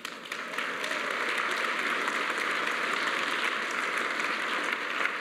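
Audience applauding, a steady run of many hands clapping that builds up in the first second.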